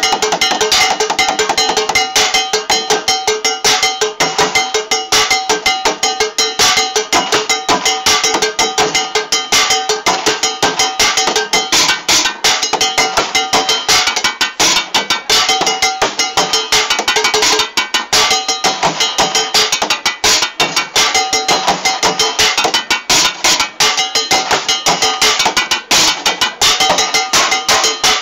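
Drumsticks beating out a fast, dense rhythm on the bottoms of a set of old cooking pots used as a drum kit. The pots ring with a few clear, steady pitches.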